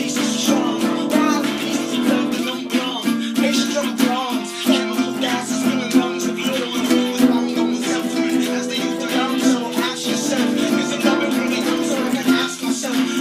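Nylon-string classical guitar being strummed and picked, a steady run of chords and notes.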